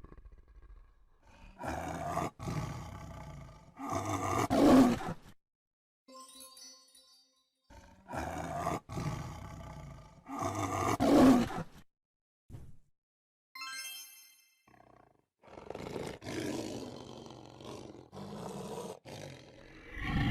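A big cat roaring again and again in long, loud roars, with brief chime-like musical notes in the pauses between them.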